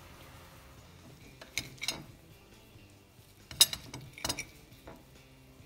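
Serrated knife clinking against a plate while cutting a grilled köfte in half: a handful of sharp clinks, the loudest about two-thirds of the way through.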